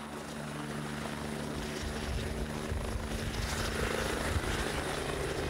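Twin-turbine Eurocopter EC145 rescue helicopter running on the ground with its rotor turning: a steady turbine hum under rotor noise, slowly getting louder.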